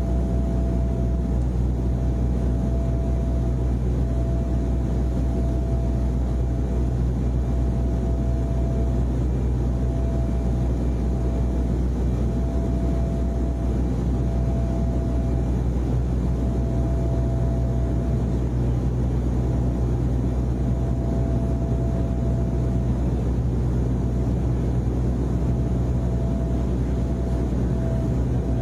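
Steady low drone of an airliner cabin, with a thin tone above it that breaks off and returns every second or two.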